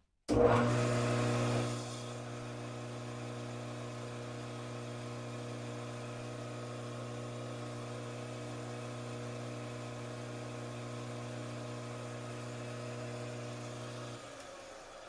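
Metal lathe spinning a steel drive pulley in its chuck, its motor running with a steady hum. The hum starts abruptly, is louder for the first second or two, and stops about 14 seconds in, fading away as the spindle winds down.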